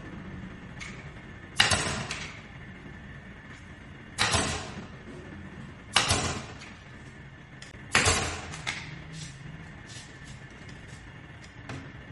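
Four sharp knocks about two seconds apart, each fading out over about half a second, with a few faint clicks between them, from tool work on a sofa being re-upholstered.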